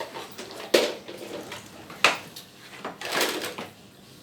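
A toy excavator and toy dump truck clattering as small hard pieces are loaded into the truck: two sharp knocks about one and two seconds in, then a short rattling pour a little after three seconds.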